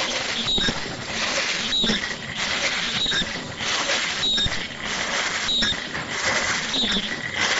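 Automatic disposable face mask production machine running, a loud continuous mechanical clatter and hiss that repeats in a cycle of about once a second.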